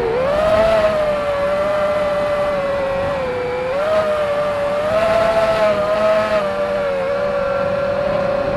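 Motors and propellers of an iFlight Nazgul 5-inch FPV quadcopter, heard from the action camera mounted on it: a steady buzzing whine whose pitch wavers up and down with the throttle. Rushes of wind noise come in about a second in and again from about four to six and a half seconds.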